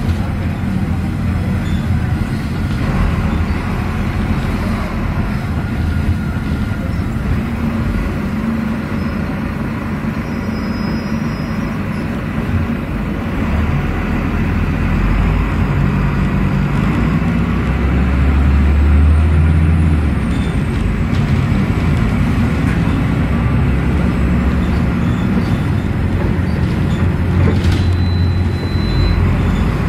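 Cabin noise of a Volvo B9SALF articulated low-floor bus under way: its Volvo D9B six-cylinder diesel running through a Voith Diwa automatic gearbox, with road noise and interior rattles. The engine's low drone swells about two-thirds of the way through and again near the end.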